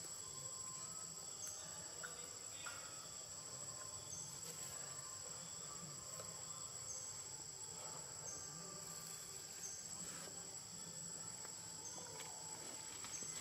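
Steady high-pitched insect chorus, with a short high chirp repeating every second or two.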